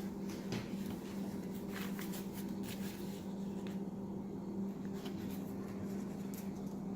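Steady low background hum with a few faint, soft rustles and taps, like light handling.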